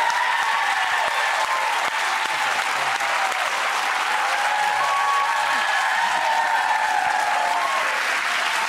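Studio audience applauding, with cheers and whoops over dense, steady clapping.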